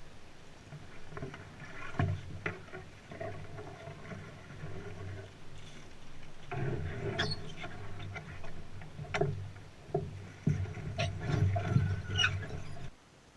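Sounds of a canoe on the water: paddling and water movement with several sharp knocks against the boat, cutting off suddenly near the end.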